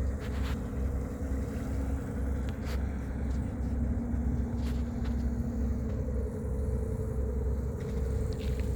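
A ferry's engine running with a steady drone over a continuous low rumble.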